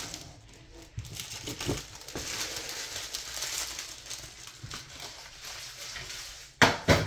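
Crinkling and rustling of foil-wrapped trading card packs being handled, with scattered small clicks, then two loud sharp knocks near the end.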